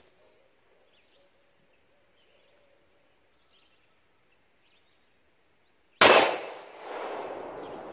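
A single 9mm pistol shot about six seconds in, loud and sharp, followed by a long echoing tail that swells again about a second later before dying away.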